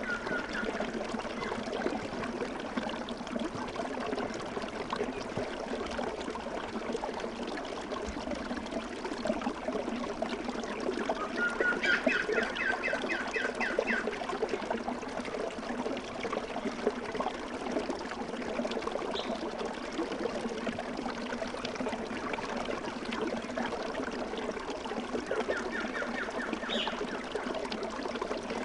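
Steady trickle of a flowing stream, with a bird calling in rapid repeated notes twice, about twelve seconds in and again near the end.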